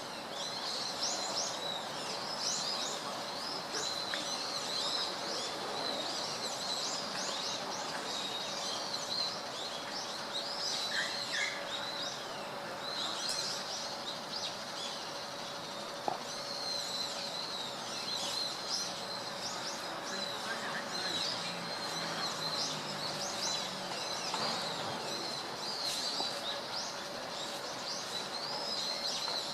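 Small birds chirping and twittering, many short high calls one after another throughout, over a faint steady hum.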